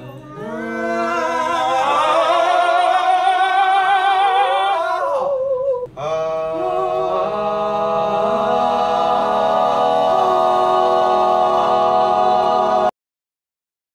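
Young men's voices singing together a cappella in long, held notes with vibrato. There is a short break about six seconds in, then one long held note that cuts off abruptly near the end.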